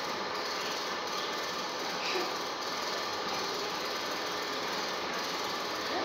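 Steady, even mechanical noise.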